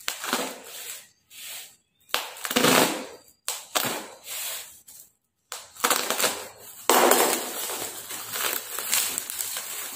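Clear plastic parcel wrapping crinkling and rustling as it is pulled open by hand, in bursts with short pauses, more continuous in the last few seconds.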